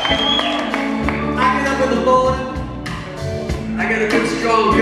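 Live rock band playing: electric guitars, bass guitar and drums, with a man singing over them.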